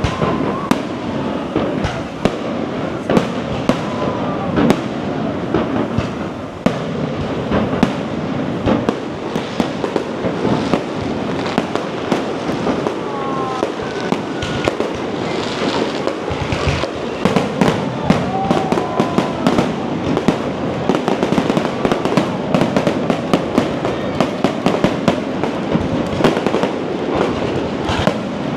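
Aerial fireworks display going off without pause: rapid bangs and crackling bursts overlapping one another, coming thicker in the last several seconds.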